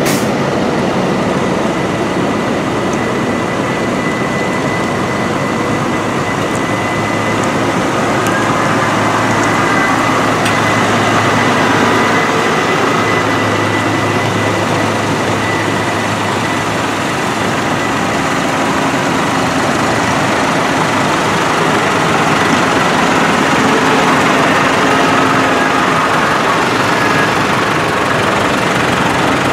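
Diesel engines of farm tractors, among them a New Holland TS100, running steadily as the tractors drive slowly past one after another.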